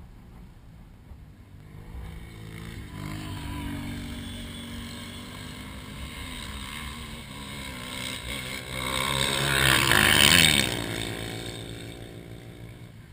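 ATV engine running hard at high revs. It grows louder over several seconds, peaks about ten seconds in, then fades quickly.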